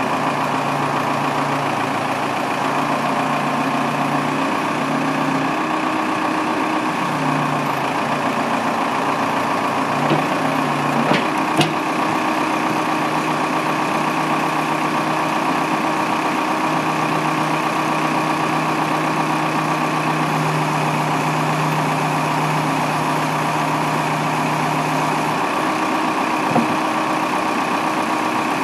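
Case 580M backhoe's diesel engine idling steadily, with a few short knocks partway through and near the end.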